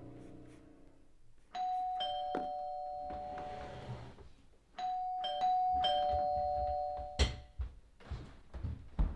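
Two-tone doorbell chime ringing 'ding-dong', a higher note then a lower one, once about a second and a half in, then twice in quick succession around five seconds in. A sharp thump follows a couple of seconds later, then a run of softer knocks.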